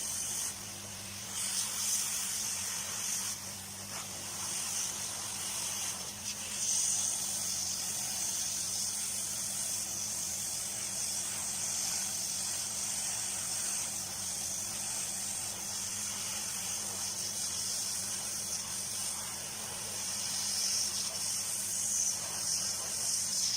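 Steady high hiss of a soldering station's hot-air blower running, with a faint low hum underneath.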